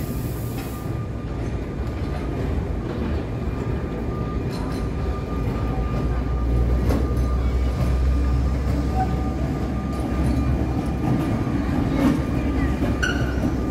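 Vintage Sóller electric tram, two wooden cars, rolling slowly across a town square on its rails. A low rumble of wheels builds about halfway through as it draws near and passes.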